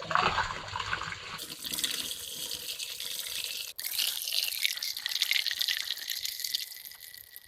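Windshield washer fluid pouring out of a plastic washer reservoir in a steady splashing stream, draining it. It breaks off briefly a little past halfway, then runs on and tapers off near the end.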